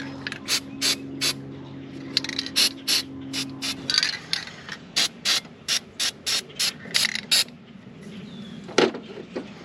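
Hand ratchet clicking in a run of short strokes, about three a second, tightening worm-drive hose clamps on new fuel hose, followed by a single knock near the end. A low steady hum stops about four seconds in.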